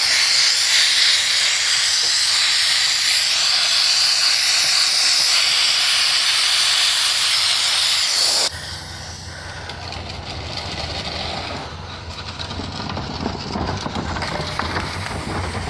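Sandblaster blasting abrasive with a loud, steady hiss against a rusty metal sign base. The blast cuts off suddenly a little over halfway through, and a quieter, lower rumbling noise remains.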